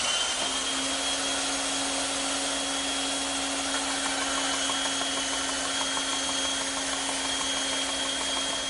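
Bandsaw running with a steady whine, its blade cutting through a thick wooden board to taper the end of a heavy stretcher.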